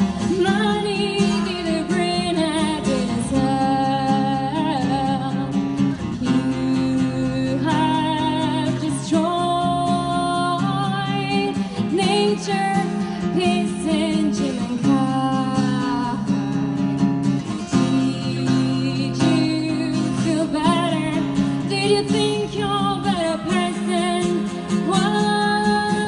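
A woman singing a slow melody over acoustic guitar accompaniment, in a live acoustic duo.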